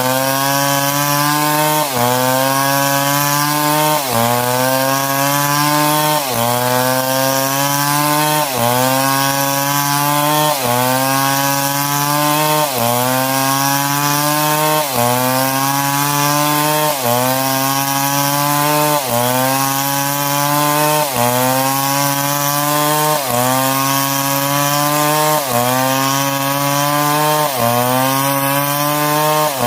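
Stihl MS 661 two-stroke chainsaw running under load while cutting wood. Its engine note sags and then jumps back up about every two seconds, in a very even repeating rhythm.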